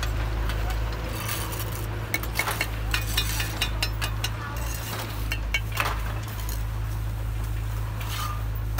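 Bricklayers' steel trowels tapping, clinking and scraping on bricks and wet mortar as bricks are laid and knocked into place, a run of sharp clinks densest from about a second in to about six seconds. A steady low hum sits under it.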